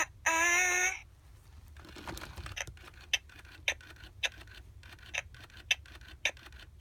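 Baby Alive My Real Baby doll's electronic voice giving a brief coo as the pacifier goes in. It is followed by a steady run of soft sucking clicks from its speaker, about two a second: the doll's response to being given its pacifier.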